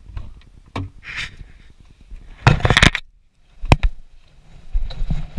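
A minivan door is opened with a loud noisy sound about halfway through. A sharp knock follows as the dog jumps out over the door sill onto the pavement.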